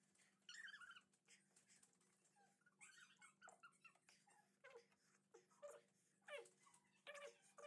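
A man's pained whimpers and sharp hissing breaths through the mouth: a run of short falling whines and airy gasps from the burn of extremely spicy noodles.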